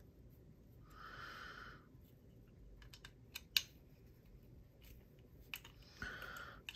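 Faint small clicks and ticks of a screwdriver bit working the pivot screw of a Spyderco Shaman folding knife, with two short rasping noises, one about a second in and one near the end.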